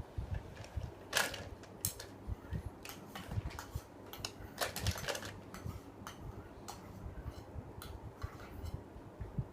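Scattered light clicks and taps at irregular intervals, with soft low thumps between them, typical of objects being handled and tapped.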